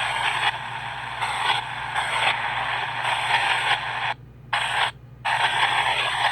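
PXB 07 spirit box sweeping through radio stations: a stream of hissing static in short chunks, cutting out twice briefly about two-thirds through, over a low steady hum.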